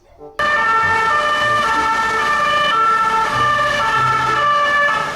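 Electronic police-style siren sound, starting suddenly about half a second in, its tones alternating between two pitches roughly twice a second, over a low rumble.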